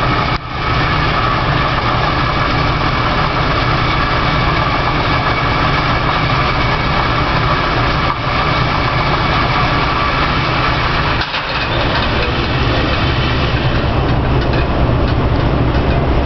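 A motor vehicle's engine running steadily: a constant low rumble with a steady hum above it, dipping briefly about half a second in and again near eleven seconds.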